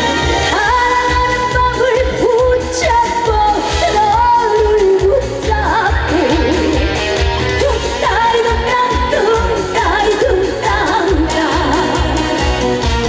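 Upbeat Korean trot song played live: a female voice sings with heavy vibrato over a band with a steady beat.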